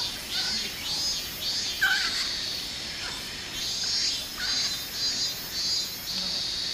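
Insects chirping in a steady run of high, rapid pulses, with a brief high squeak about two seconds in.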